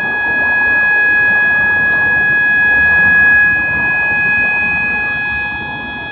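System Sensor MA/SS-24 fire alarm horn sounding one continuous, unbroken 800 Hz tone.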